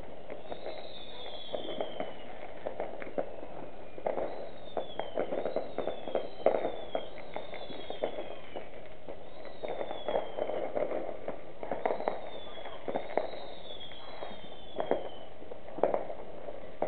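Fireworks going off all around: many scattered bangs and pops, with several whistling fireworks sliding down in pitch.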